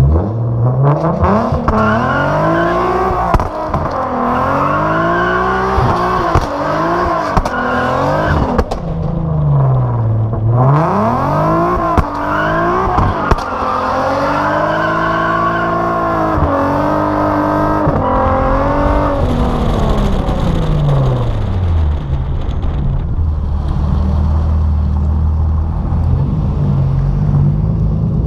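Car engine being revved hard, its pitch sweeping up and down again and again. Near the middle it falls away and climbs once more, then it slows to a steady low drone for the last several seconds.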